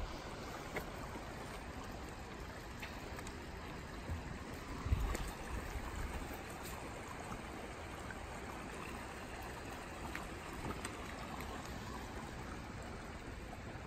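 Shallow rocky creek trickling steadily, with a few low thuds about four to six seconds in.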